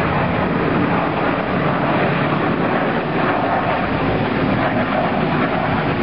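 Steady, loud jet engine noise from an airliner rolling on the runway.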